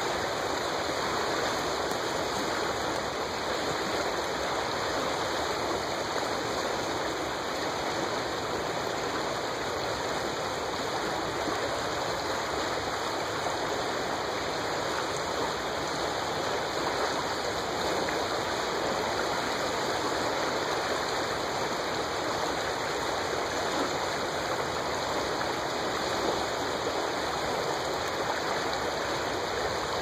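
Rapids on the Milwaukee River: fast water rushing in a steady, even hiss, with no breaks or changes.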